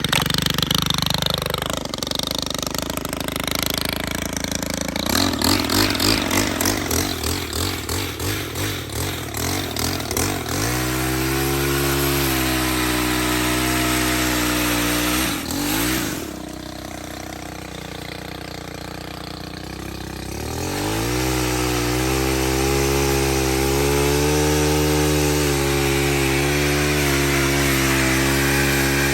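Stihl HT 131 pole saw's small 4-MIX engine running: uneven and pulsing for the first ten seconds, then holding a steady high-revving note. It drops to idle about sixteen seconds in and revs back up about four seconds later.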